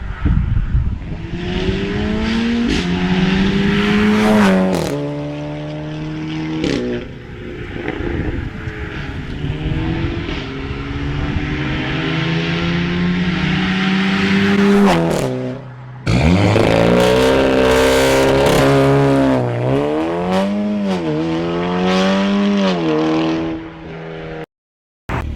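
Seat Leon Cupra ST's turbocharged four-cylinder on an aftermarket exhaust, accelerating with the engine note climbing and dropping back at each upshift. About two-thirds of the way in, an abrupt cut switches to a run where the revs rise and fall several times, and the sound stops suddenly shortly before the end.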